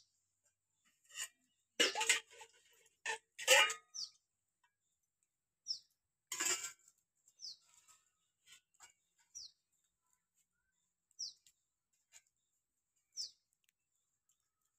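A bird's short falling chirp repeats about every two seconds. Between the chirps come a few sharp snaps and crunches from long green beans being cut on a blade, loudest in the first few seconds and once more about six seconds in.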